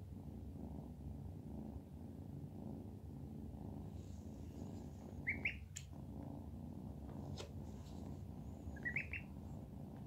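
Kitten purring steadily and softly. A duckling gives short high peeps twice, about five seconds in and again near the end, and these are the loudest sounds.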